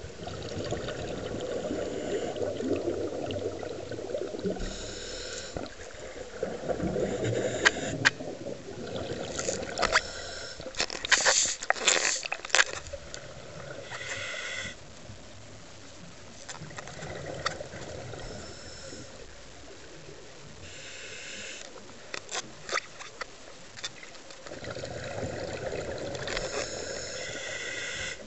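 Scuba regulator breathing heard underwater: about four hissing inhales, each followed by a long bubbling rumble of exhaled bubbles. A cluster of sharp clicks and knocks comes about ten to thirteen seconds in.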